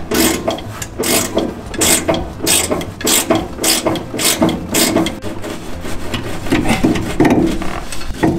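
Hand ratchet wrench clicking in repeated back-and-forth strokes, about one and a half a second, undoing the mounting nut of a broken rear shock absorber.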